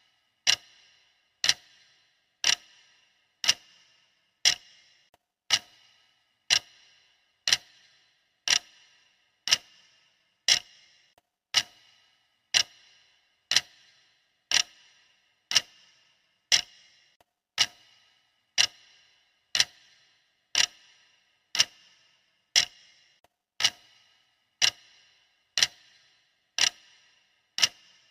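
Clock ticking steadily, one sharp tick about every second, each tick trailing off in a short ring.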